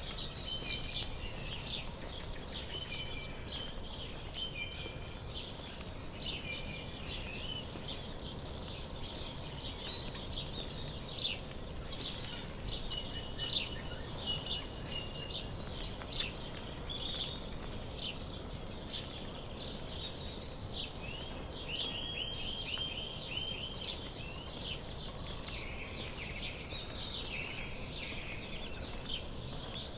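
Songbirds chirping and singing, several short calls and trills overlapping throughout, over a steady low background of outdoor noise.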